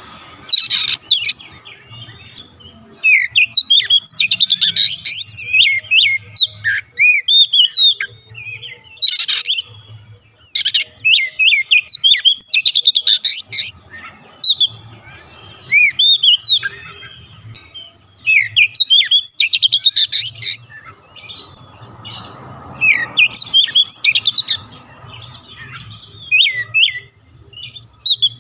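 Oriental magpie-robin singing in full song: varied phrases of rising and falling whistled notes mixed with rapid buzzy runs, each phrase a second or two long with short pauses between.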